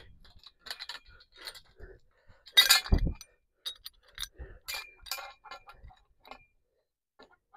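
Metal pole and the top-rail fitting of the coop frame clinking and knocking together as the pole is worked into place, a string of light metallic clicks with one louder knock about two and a half seconds in. The pole seems too thick for the fitting.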